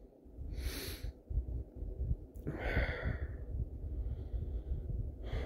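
A man's audible breaths close to the microphone: a short one about a second in and a longer, hissier one about three seconds in, over a low rumble.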